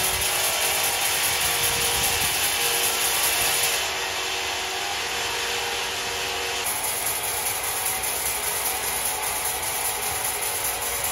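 Sawmill saw running and cutting timber: a steady hissing mechanical noise that drops slightly about four seconds in and shifts again a couple of seconds later.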